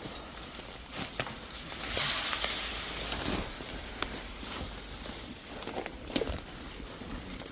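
A loud rustling hiss about two seconds in that fades over a second or so, with scattered light clicks and knocks around it.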